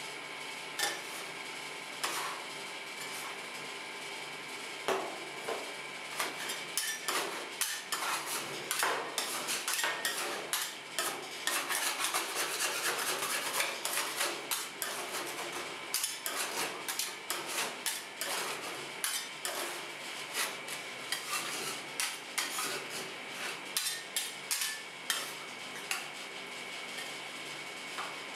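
Two metal spatulas chopping and scraping pineapple and cream on a steel ice-cream cold plate: rapid clacking of the blades against the plate. The strikes are sparse for the first few seconds and come thick and fast through the middle.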